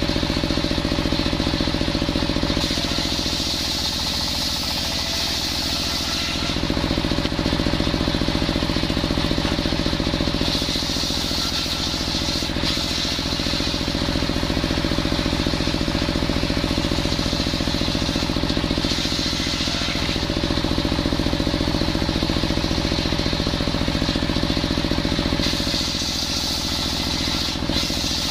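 Engine-driven table circular saw ripping coconut wood: the engine runs steadily throughout, while the blade's high cutting hiss rises and falls over several passes of the plank through the blade.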